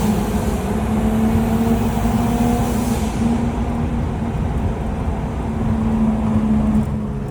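BMW E36 M3's straight-six engine running at a steady pitch under way, over a continuous rumble of road noise. A high hiss drops away about three seconds in.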